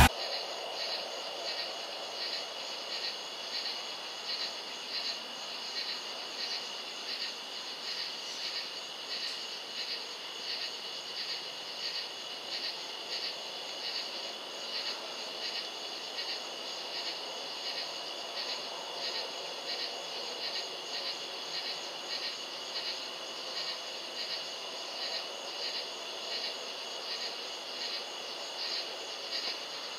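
Night insects chirping in a steady chorus, a high pulsing about twice a second.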